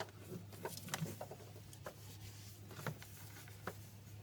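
Faint, irregular metal clicks and taps of a wrench working a seized strut bolt, about half a dozen with the clearest about three seconds in, over a low steady hum.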